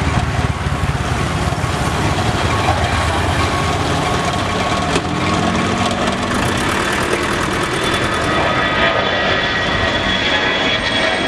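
Airbus A320's twin jet engines at takeoff thrust as the airliner lifts off and climbs out, a loud steady roar. A high whine comes in over the roar in the last couple of seconds as the aircraft draws closer.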